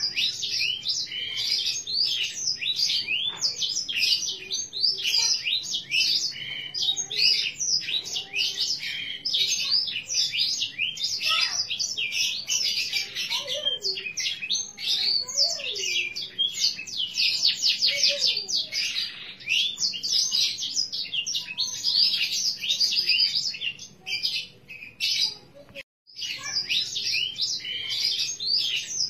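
Green canary singing a long, rapid, unbroken song of chirps and trills, with a short lull near the end.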